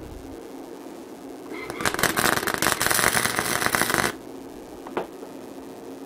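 MIG welder arc crackling on a stainless steel rod for about two and a half seconds, then cutting off abruptly. The heat is too much and burns through the rod. A single short click follows about a second later.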